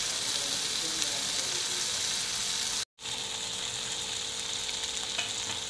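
Beef keema sizzling in oil in a pan, a steady hiss that cuts out for a moment about three seconds in.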